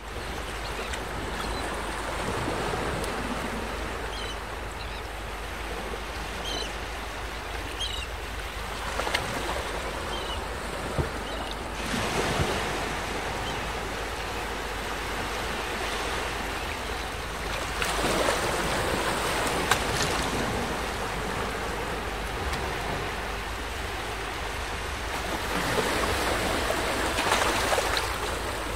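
Small waves breaking and washing up onto a sandy beach: a steady wash of surf that swells louder every several seconds as each wave comes in.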